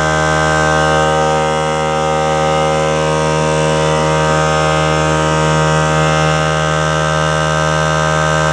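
Small portable electric air compressor running steadily with an even hum, pumping its tank up toward about 110 psi.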